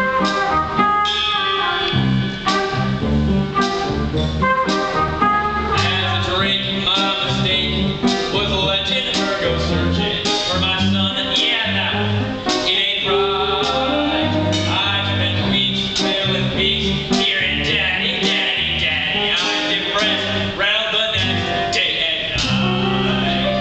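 Stage musical's accompaniment music playing at a steady level, with a regular pattern of low bass notes under the melody.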